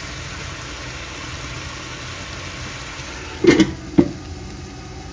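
An aluminium lid clanks down onto a wok about three and a half seconds in, ringing briefly, with a second sharp clink about half a second later. Under it a steady low rumble runs on.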